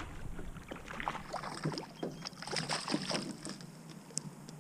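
Small hooked fish splashing at the water's surface as it is reeled in beside the boat: a string of short, irregular splashes.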